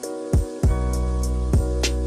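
Background music: held chords over a drum beat.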